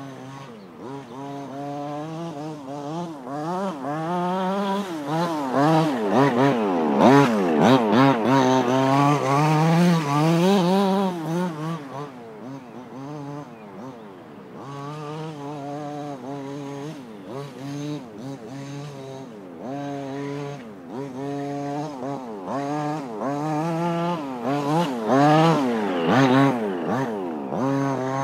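Petrol two-stroke engine of a 1:5-scale King Motor T2000 RC car with a dual exhaust pipe, revving up and down again and again as the car is driven through turns. It grows louder twice, about a quarter of the way in and again near the end, as the car comes close.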